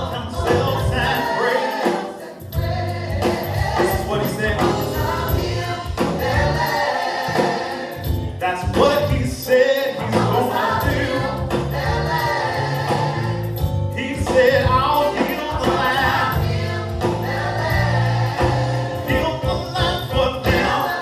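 Gospel choir singing a worship song over full band accompaniment with a strong bass line.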